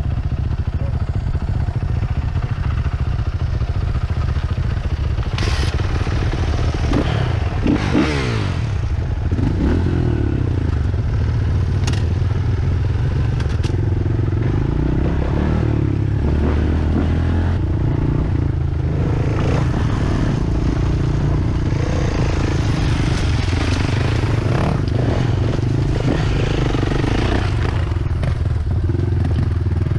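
Dirt bike engine running under way on a trail, revs rising and falling, with clatter, scraping and a few sharp knocks from the bike over rough ground.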